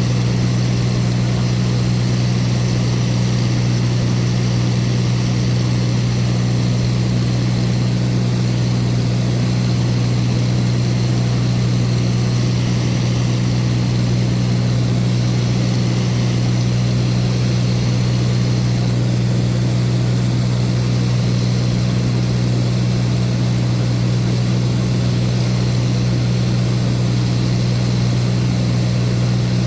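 Light propeller aircraft's engine and propeller running steadily in flight, a loud low drone that does not change.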